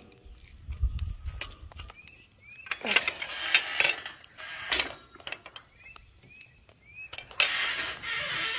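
Handling noise of a phone rubbing and knocking against a metal pipe gate and wire fence, with clinks and rattles that are loudest in the middle. Several short high chirps come through between them, and a steady rushing sound sets in near the end.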